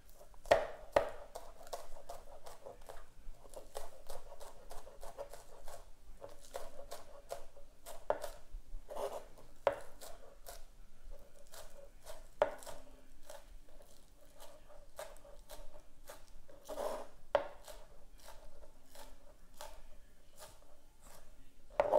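Kitchen knife chopping green onions on a plastic cutting board: a long run of quick, uneven knife taps, with a few louder strikes here and there.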